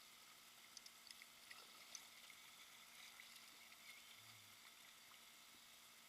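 Near silence: faint hiss of flowing river water, with a few small ticks.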